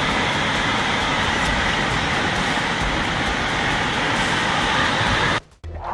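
Steady, loud rushing of floodwater, cut off sharply about five and a half seconds in.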